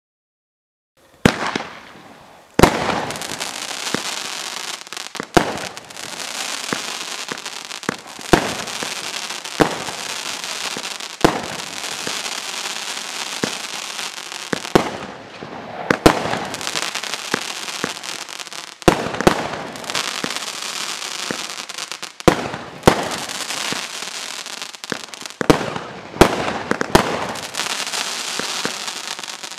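35-shot consumer fireworks cake firing, starting about a second in: a sharp bang every second or so as shots go off, over continuous crackling hiss from the gold crackling comet tails.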